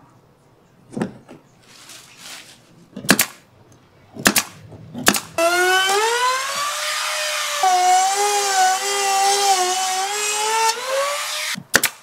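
A pneumatic brad nailer fires four separate shots. Then a compact router cutting plywood paneling runs for about five seconds with a high whine that shifts pitch under load partway through, and stops. More quick nailer shots come at the very end.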